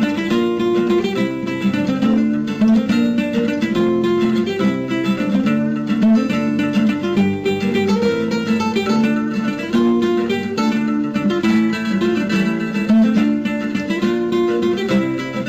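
Mobile phone ringtone: an instrumental tune of plucked-string notes, played continuously in a steady rhythm.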